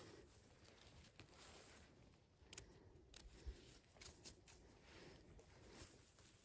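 Near silence with faint rustling and a few soft clicks as gloved hands pluck golden chanterelles from grass and handle them.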